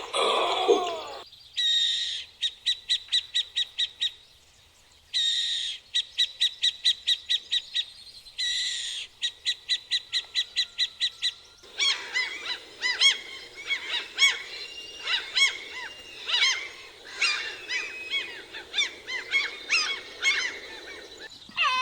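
Bird calls. First comes three bouts of a fast, evenly repeated high call, about four notes a second, each bout opening with a harsher note. Then, from about halfway in, a dense mix of chirps and whistles from several birds.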